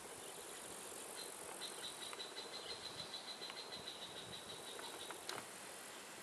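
An insect stridulating in the field: a faint, high, rapidly pulsed buzz that starts about a second in and runs for about four seconds over a steady outdoor hiss. A single sharp click follows as it stops.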